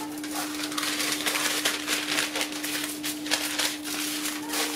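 Sheets of parchment paper and aluminium foil rustling and crinkling as they are handled and smoothed by hand, in quick, irregular crackles.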